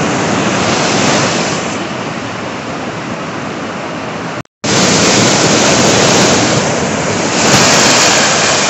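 Ocean surf washing in over rocks and up a pebble-and-sand beach as a steady, full wash of noise. It cuts out for an instant about halfway, then comes back louder, with a wave surging loudest near the end.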